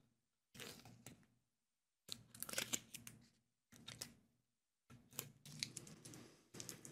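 A wooden box lid and its hinge hardware being handled and test-fitted: small clicks, taps and rubbing of wood and metal in several short bursts.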